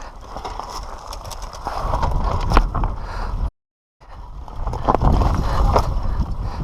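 Yamaha YZ250 single-cylinder two-stroke dirt bike running while being ridden over rough trail: engine rumble mixed with wind on the mic and scattered knocks from the terrain. The audio cuts out completely for about half a second partway through.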